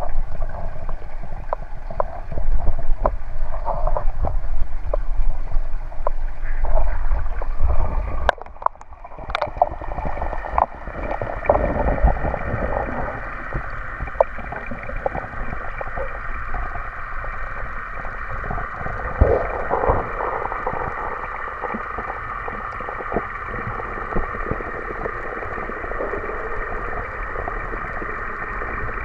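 Pond water sloshing and splashing against a GoPro held at the surface of a koi pond, with a small waterfall spilling into it. About eight or nine seconds in the camera goes under. From then on the falling water and moving pond water are heard through the housing as a steady rushing hiss with occasional faint clicks.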